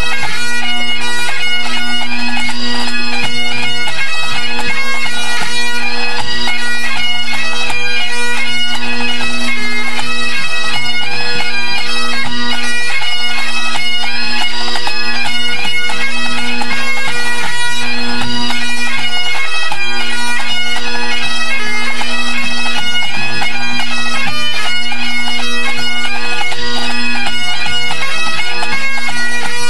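Pipe band playing: Great Highland bagpipes, loud and close, with steady drones under a quick-moving chanter melody, and drums beneath.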